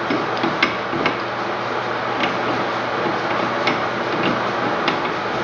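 Light, irregular clicks and taps of metal and plastic parts as a Moen volume-control valve cartridge and its trim piece are handled and fitted by hand into the brass valve body, over a steady background hiss.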